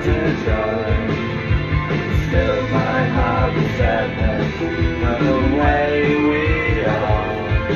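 Rock song playing, with a steady drum beat and guitar, and singing over it.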